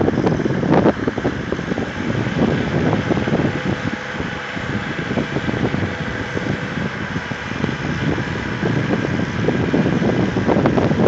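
Wind buffeting the microphone in uneven gusts, a rough, fluctuating rumble.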